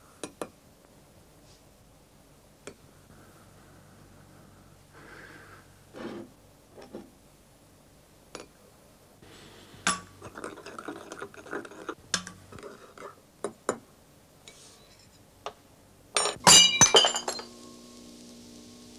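Scattered light clinks of a spoon and crockery. Near the end comes a loud, quick cluster of glass striking and cracking as two broken glass bottles clash together.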